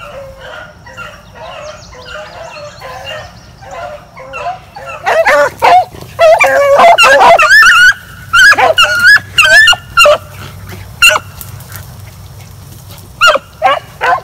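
A pack of rabbit hounds baying as they run a rabbit's scent trail. The calls are fainter and farther off at first, then loud and close from about five seconds in, coming in bunches, with a few more near the end.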